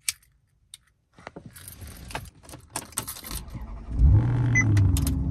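Keys jangling on a Maserati key ring as the key goes into the ignition, then the Maserati's engine cranks and starts with a loud rev that settles down to a steady idle. A short chime beeps near the end.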